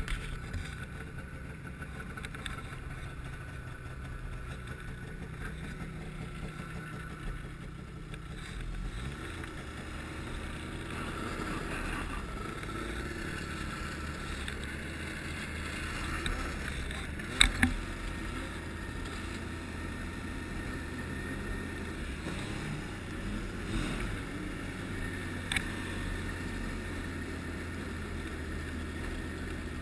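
Ski-Doo Renegade 1200 snowmobile's three-cylinder four-stroke engine running steadily at low speed, heard from the rider's seat. A couple of sharp clicks come a little past halfway.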